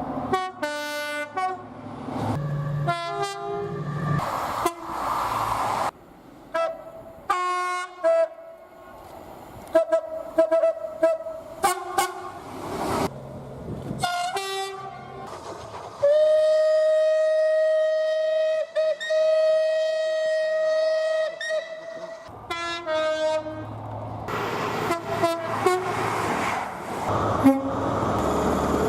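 Train horns sounding in a run of short clips cut one after another, mostly brief two-tone blasts. Past the middle, one long steady blast is held for about six seconds. Near the end comes the rushing noise of a passing train.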